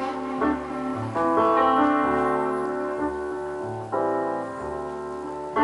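Recorded music played back through a loudspeaker in a room: a slow piano passage with sustained chords changing every second or so. It is being driven by a home-built Futterman-topology OTL valve amplifier.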